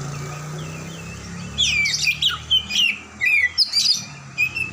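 Oriental magpie-robin (kacer) calling: a quick run of sharp, sweeping chirps and whistles beginning about a second and a half in, over a low steady hum at the start.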